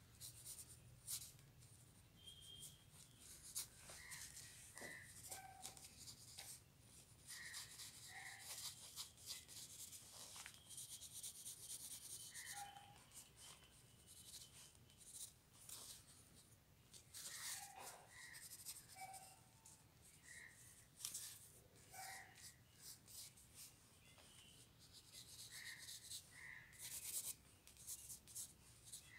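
Faint scratching and rubbing of a pencil lead on paper while sketching, in runs of short strokes with brief pauses between them.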